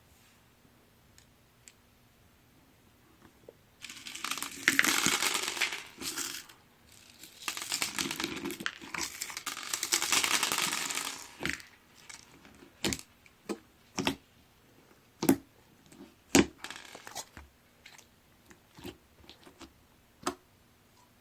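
Crunchy cereal slime being squeezed and worked by hand: two long stretches of crackling and crunching, then a run of sharp separate pops and clicks.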